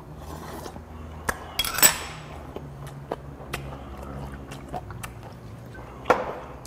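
Soju poured from a glass bottle into a small glass, amid small clinks of chopsticks and dishes on the table. A sharp rattle about two seconds in is the loudest sound, and a hard knock comes near the end.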